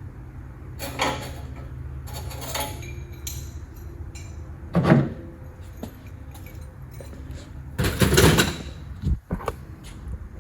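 Metal clanking and scraping as the Lamborghini Murcielago's heavy OEM exhaust muffler is worked loose and pulled out, with a sharp clunk about five seconds in and a longer scraping clatter around eight seconds. A steady low hum runs underneath.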